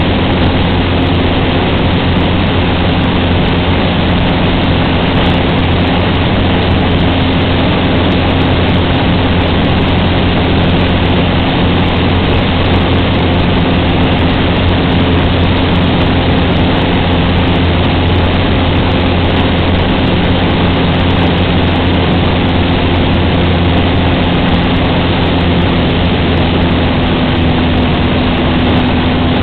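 Cessna 150's four-cylinder Continental O-200 piston engine and propeller running steadily in flight: a constant drone with no change in pitch or level.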